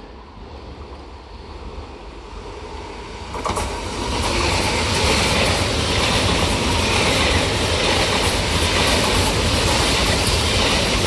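Frecciarossa 1000 (ETR400) electric high-speed train approaching and passing close by. Its rumble grows, turns sharply louder about three and a half seconds in, then holds as a steady loud rush of wheels on rail as the cars go by.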